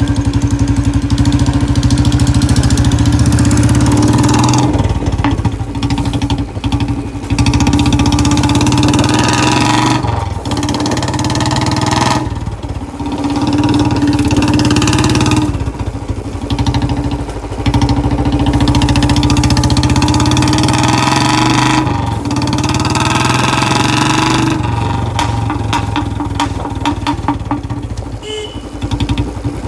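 Royal Enfield Bullet Standard 350's single-cylinder engine running loud through a free-flow long Punjab bottle silencer with a C-type bend pipe. The throttle is opened and let off every few seconds, with pops from the exhaust as it closes.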